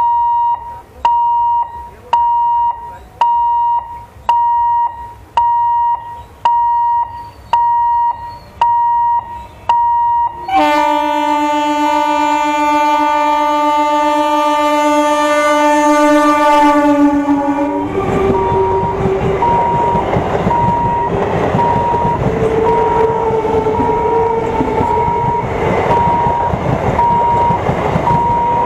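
Level-crossing warning beeper sounding a little faster than once a second, then an Indian Railways EMU local train's horn blown in one long blast of about seven seconds. From about eighteen seconds in the EMU passes close by: a loud rumble of wheels on rails with a whine rising in pitch, the crossing beeper still going underneath.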